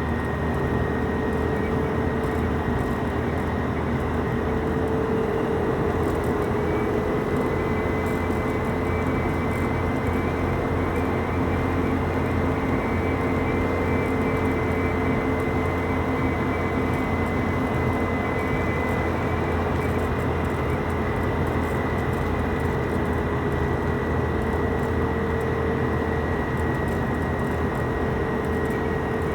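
Steady road noise of a car moving along a motorway: tyre rush with a constant engine hum, unchanging throughout.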